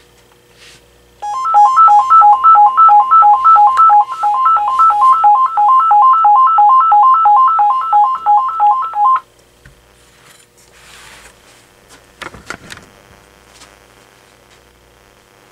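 Vtech cordless phone ringing: an electronic ringtone of three quick notes cycling over and over for about eight seconds, then cutting off suddenly. A short knock follows a few seconds later.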